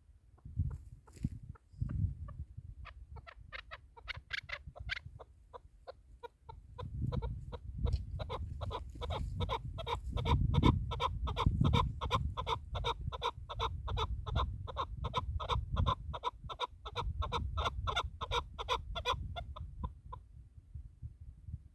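Chukar partridge calling: a long run of rapid, evenly spaced 'chuck' notes, several a second, that builds up a few seconds in and stops shortly before the end, over a low rumble.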